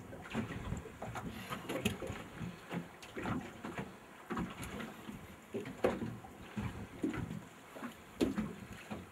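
Choppy river water slapping irregularly against the hull of a drifting boat, with a sharper slap every second or two.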